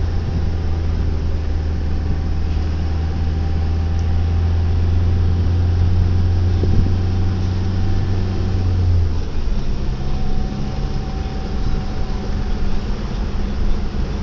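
Off-road 4x4 driving on beach sand, heard from inside the cabin: a steady engine drone with tyre and wind noise. About nine seconds in the deep low drone drops away and the engine note shifts to a steadier, slightly higher hum.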